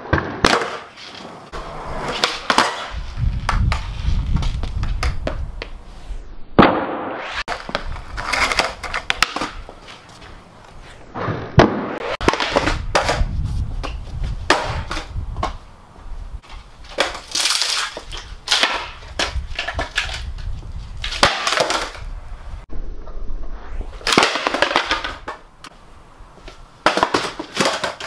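Skateboard on a concrete floor: wheels rolling with a low rumble in several short runs, broken by sharp pops, slaps and clatters of the deck as flip tricks are tried.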